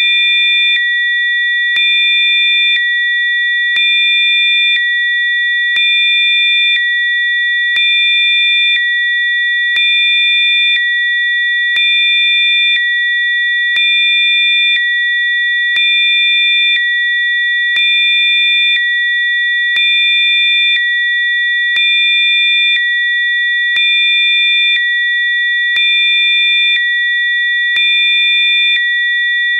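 Synthesized Rife frequencies: several steady electronic sine tones sounding together, high-pitched. Fainter tones switch in and out with a slight rise and fall in level about once a second.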